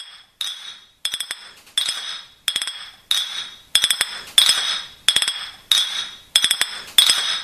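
Rhythmic clinking of a small hard object: a quick cluster of clinks repeated about every two-thirds of a second, each leaving a high ringing tone, growing louder over the first few seconds.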